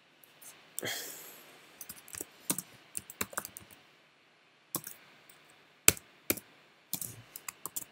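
Computer keyboard typing: irregular key clicks, some single strokes louder than the rest, with a pause of about a second near the middle.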